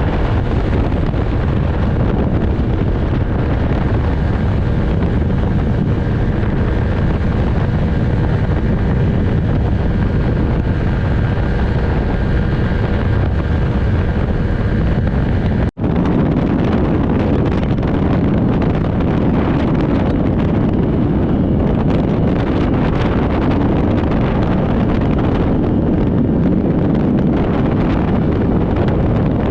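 Steady, loud wind buffeting the microphone, with a low rumble, broken by a brief dropout about halfway through.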